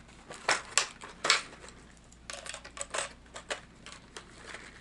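Small hard-plastic lipless crankbaits and their clear plastic case clicking and clattering as they are handled: a few sharp clicks in the first second and a half, then a run of lighter ticks.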